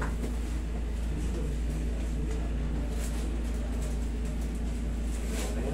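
Steady low hum of room background, with a couple of faint brief sounds about halfway and near the end.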